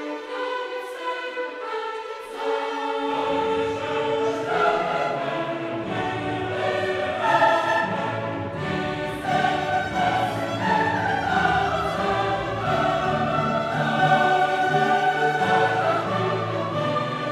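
Background classical music with choir and orchestra; lower bass parts come in about three seconds in.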